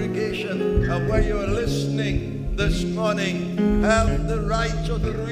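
Gospel worship music: a singing voice over a band with bass guitar and keyboard.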